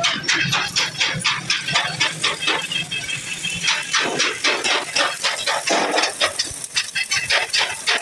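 Rapid, even metallic knocking, about four strikes a second, like hammering on sheet steel, amid stick-welding work on a steel water heater tank.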